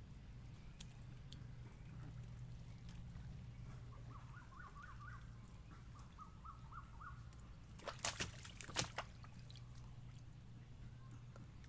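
Fish and a cast net being handled in a small boat, with a quick cluster of sharp knocks about eight seconds in. Two short runs of rapid high chirps come mid-way, over a steady low hum.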